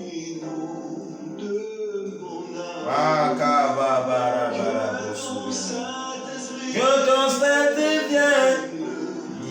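A man singing a gospel worship song in long, drawn-out sung phrases.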